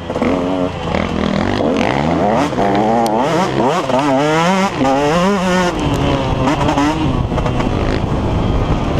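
KTM 150 XC two-stroke dirt bike engine revving hard under race throttle, its pitch climbing and dropping again and again as the rider works the throttle and gears, then running steadier near the end. Heard close up from a helmet-mounted camera, with wind rush over it.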